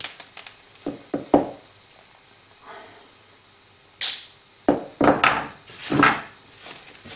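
Straight metal snips cutting thin powder-coated aluminium sheet in a few short crunching snips. Then come a sharp snap and a run of louder knocks and clatters as the snips are set down on the wooden bench and the offcuts are brushed aside.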